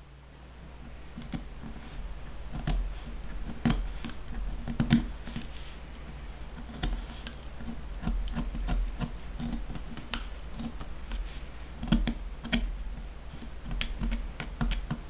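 A sharp knife blade taking small cuts around the corner of a leather wallet, its edge run against a small metal anvil as a guide: an irregular run of crisp clicks and short scrapes, a few of them louder.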